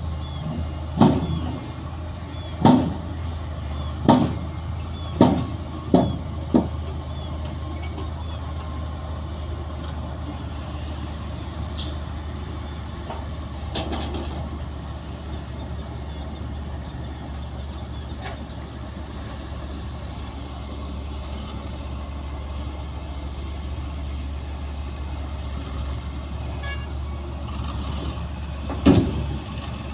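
Heavy diesel earthmoving machinery running steadily with a low drone, broken by sharp metallic knocks: six in the first seven seconds, irregularly spaced, and one more near the end.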